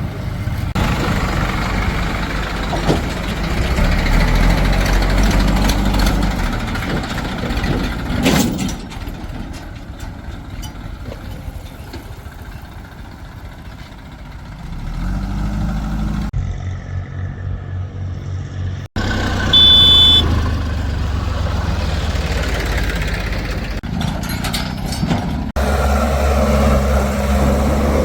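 Heavy tractor and backhoe engines running, the sound changing abruptly a few times as clips are cut together. A short high beep sounds about twenty seconds in.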